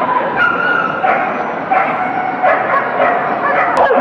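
Dogs barking and yipping in a series of short, high notes, several a second, over steady background noise.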